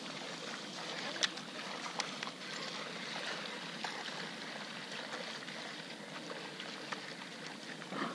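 Water trickling and lapping along a kayak's hull, a steady wash, with a few sharp light clicks about a second, two seconds and four seconds in.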